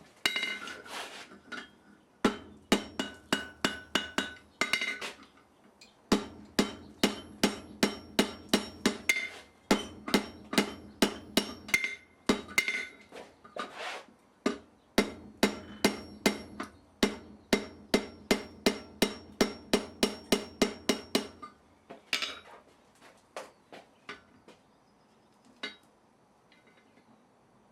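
Blacksmith's hand hammer striking steel on an anvil in steady runs of ringing blows, about three a second, with short pauses between runs. The blows thin to a few lighter taps about 22 seconds in.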